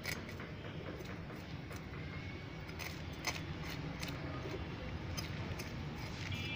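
Fish being scaled against the edge of a boti, a curved blade fixed on a stand: irregular sharp clicks and scrapes of scales coming off, over a steady low background noise.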